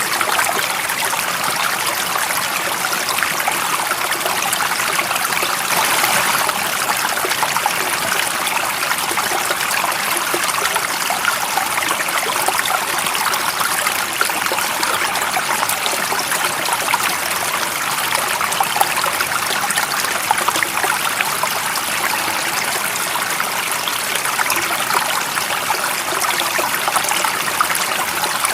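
Stream water running steadily over rocks, a continuous babbling rush with little low end.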